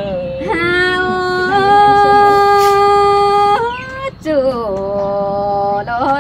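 A voice singing a Tai (Thái) folk love song unaccompanied, holding one long steady note for about three seconds, then after a short break a second long note that slides down and holds.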